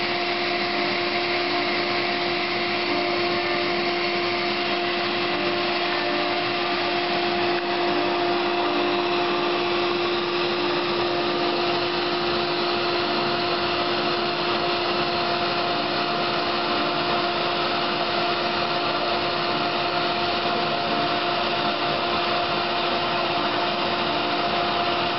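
Router spindle of a CNC router running steadily while V-carving a wooden board, with a dust-collection vacuum drawing air through the hose at the bit. A steady hum with two held tones over a constant rush of air.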